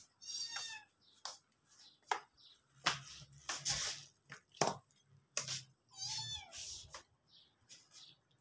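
Cats mewing, two high-pitched mews near the start and about six seconds in. A run of soft thumps, roughly one a second, comes between them and is the loudest sound.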